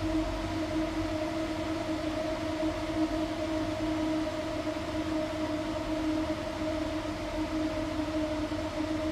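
Electric radiator cooling fan running with the engine off, a steady hum with an even whine over it. The owner suspects air pockets in the cooling system are switching it on.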